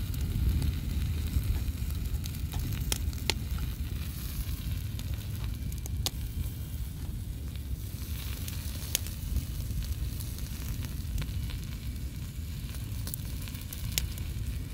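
Sausages, shrimp and green peppers sizzling on a small charcoal grill, with scattered sharp pops, over a steady low rumble.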